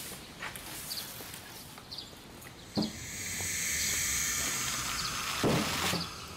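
Small bird chirps over a quiet background with a sharp knock, then a hissing swell builds in about halfway through and holds, broken by a heavy thud near the end.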